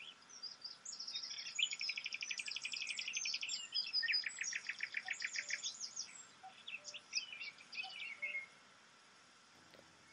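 A chorus of songbirds: rapid trills and chirping calls overlapping, thinning out and dying away near the end.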